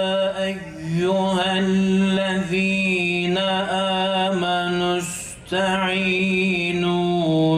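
A man reciting the Quran in Arabic in slow, melodic tajweed chant into a microphone. He holds long notes with ornamented turns between them and stops briefly for a breath about five seconds in.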